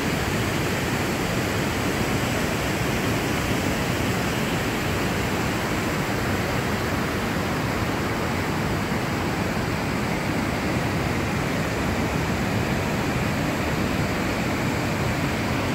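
Waterfall and river water rushing, a steady, even wash of noise that does not change.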